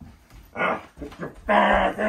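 A man's animal-like vocal noises, like a dog's, in two bursts, a short one about half a second in and a longer one near the end, made as a clown-masked creature mauling a person on the floor.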